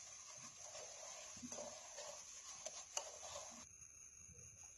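Plastic-gloved hand squishing and kneading mashed potato with spices in a steel bowl: soft, irregular squelching and crinkling, with a couple of sharp clicks a little before it cuts off suddenly about three and a half seconds in.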